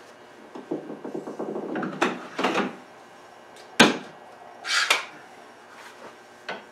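Bar clamps being released and taken off a glued wooden chair: a rattling run of clicks, a sharp snap about four seconds in, then a short scraping slide and a light knock.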